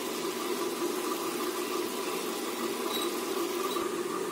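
Ground masala paste bubbling in oil in an aluminium pressure-cooker pan, over a steady low drone.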